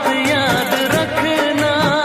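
Background music: a song with a wavering melody line over a steady beat.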